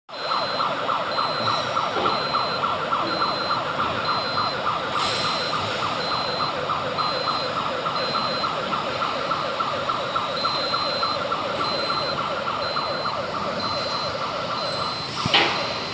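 Warning alarm of an electric railway turntable sounding while the deck rotates: a rapid electronic warble with a high beep about twice a second. Near the end the warble stops and there is a sharp knock.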